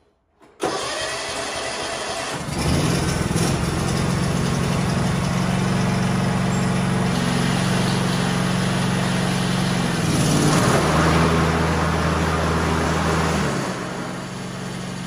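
John Deere LT180 lawn tractor engine starting up and then running steadily. It catches about two seconds in. From about ten seconds it runs deeper and louder for a few seconds, then settles back.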